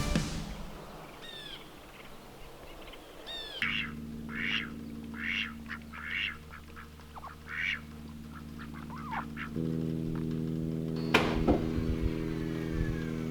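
Short bird calls, several of them about a second apart, with a steady low droning chord underneath that shifts to a new chord about ten seconds in.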